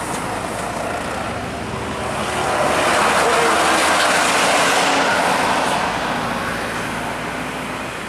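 Large tour coach passing on a road: diesel engine and tyre noise swell, loudest a few seconds in, then fade.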